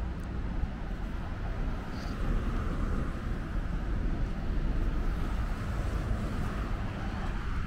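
Street ambience dominated by road traffic: a steady rumble of car engines and tyre noise from the road alongside.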